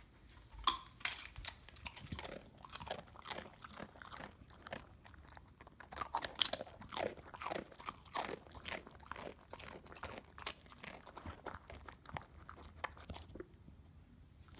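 A dog crunching and chewing a crisp tortilla chip: rapid, irregular crunches that stop shortly before the end.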